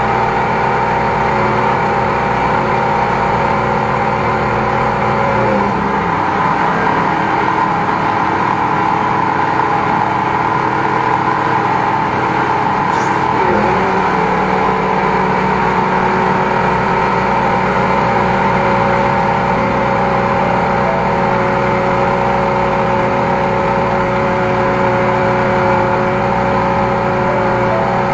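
High-pressure drain jetter running steadily while its hose is worked through a grease-clogged drain line. Its note drops about five seconds in and comes back up about eight seconds later.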